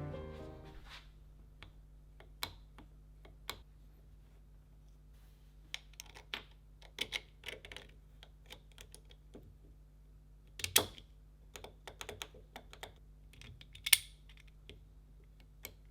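Scattered small metallic clicks and taps from the restored antique padlock being handled and worked, with two sharper clicks near the end.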